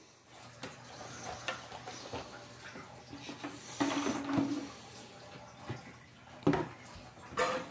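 Faint handling noise of a cardboard box and objects being shifted on a wooden table, with scattered light knocks and two louder knocks near the end.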